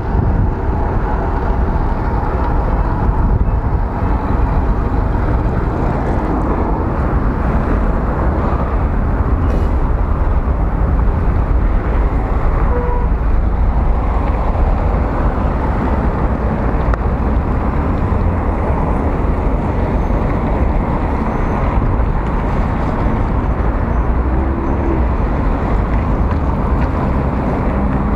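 Steady low wind rumble on the microphone, mixed with road and traffic noise, while riding a bicycle along a busy road.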